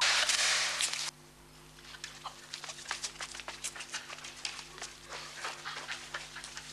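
A sign being forced off its fixing: a loud rasping crack lasting about a second, then a quieter run of light, irregular clicks and taps over a low steady hum.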